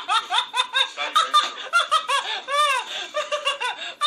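A person laughing hard and uncontrollably: rapid, high-pitched bursts of laughter several times a second, with one long squealing laugh that rises and falls about two and a half seconds in.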